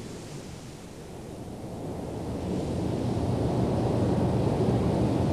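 Low rumbling rush of turbulent water and breaking surf, dipping about a second in, then building back up and holding steady.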